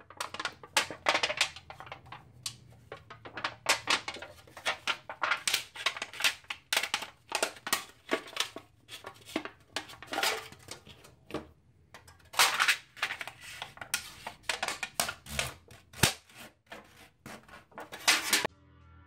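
Thin aluminium sheet, cut from a large printed drink can, crinkling and crackling as it is handled and flexed, in an uneven run of sharp crackles. There is a single sharp click about sixteen seconds in.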